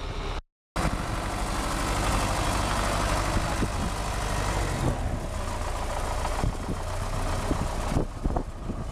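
Tractor diesel engine running steadily. The sound drops out completely for a moment about half a second in, and there are a few knocks near the end.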